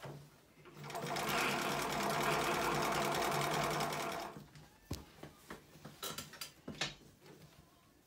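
Juki LU-563 industrial leather sewing machine stitching through a hide and its fabric backing in one run of about three and a half seconds, then stopping abruptly. A steady motor hum sits under it, and light clicks of the material being handled follow the stop.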